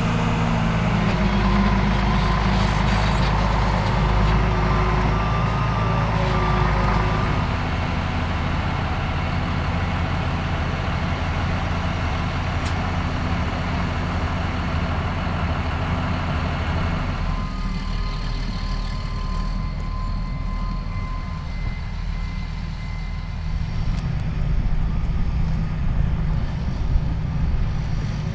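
Liebherr crawler bulldozer's diesel engine running steadily under load, its note shifting a couple of times, with a reversing beeper sounding for a few seconds near the start.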